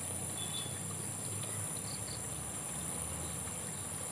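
Steady, high-pitched chorus of insects over a faint low rumble of outdoor background noise.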